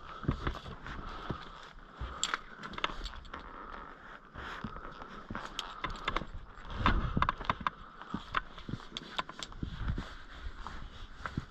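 Abseil down a granite slab: scattered scrapes, clicks and knocks of the rope running through the belay device, hands working the rope and boots scuffing the rock, with a cluster of heavier knocks about seven seconds in.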